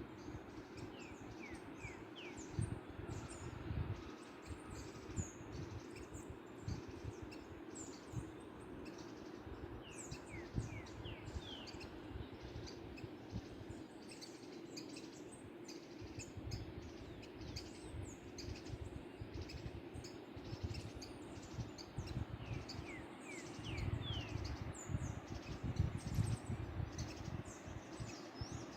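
Small birds singing, with many quick high chirps and short falling whistles, over a steady rush of falling water. An irregular low rumble runs beneath and grows louder near the end.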